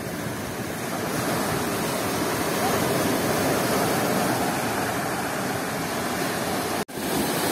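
Storm surf on the Black Sea: waves breaking and foam washing in, a steady rush of water that swells a little in the middle. The sound drops out for an instant near the end.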